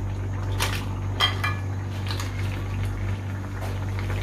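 A few sharp metal clinks and knocks against a cooking pot as crabs are handled in the boiling masala, the loudest about a second in with a short ring. A steady low hum runs underneath.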